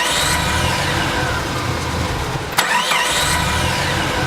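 Sound effect of a vehicle engine being cranked and failing to catch, played over a hall's sound system: a cranking rumble, then a click about two and a half seconds in and a second try with rising and falling whines.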